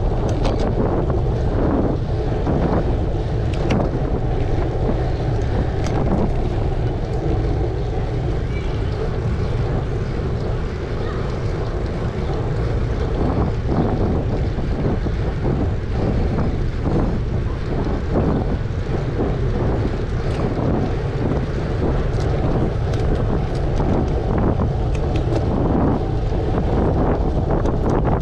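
Wind buffeting an action camera's microphone as it moves outdoors: a steady, heavy low rumble, with faint scattered clicks through it.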